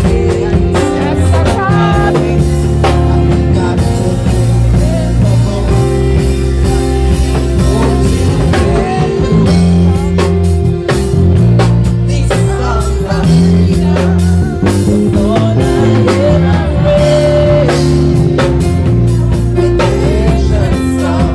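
Live band playing reggae music loudly: a steady bass line, drum kit and guitar, with some singing.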